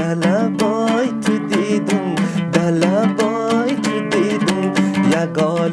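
Background music led by a strummed plucked string instrument. It keeps a steady rhythm of about three to four strokes a second over a held low drone, with a sliding melody line on top.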